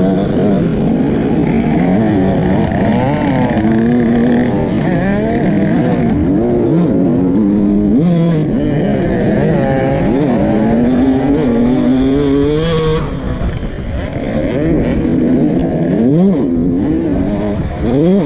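KTM 125 two-stroke dirt bike engine revving hard, its pitch rising and dropping over and over as the throttle opens and closes, with other dirt bikes' engines close by mixed in. Two sharp rising revs near the end.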